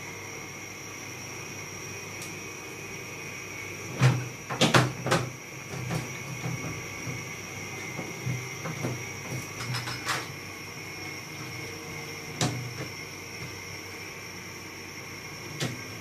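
Hard plastic parts of an air conditioner's indoor unit knocking and clattering as they are handled and taken apart, with a quick cluster of sharp knocks about four seconds in and scattered lighter knocks after, over a steady background hiss.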